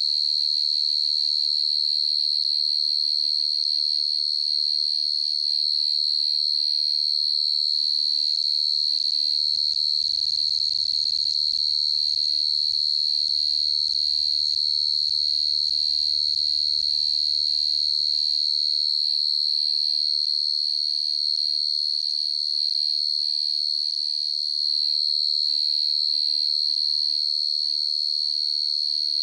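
A male cricket (dế mèn) singing a steady, high-pitched, unbroken trill.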